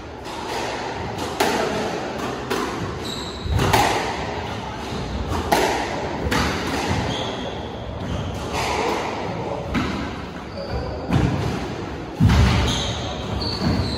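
Squash ball struck by rackets and hitting the court walls during a rally, sharp hits about once a second echoing in the enclosed court, with short high squeaks of shoes on the wooden floor between shots.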